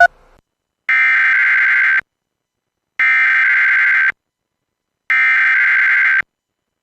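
Emergency Alert System SAME header: three identical bursts of fast digital data tones, each about a second long with about a second's pause between. They open an automatic weekly test of the alert system.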